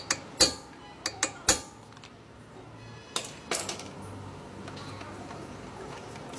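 A series of sharp clicks and clanks, like hard objects knocking together: several in the first second and a half, then a few more about three and a half seconds in.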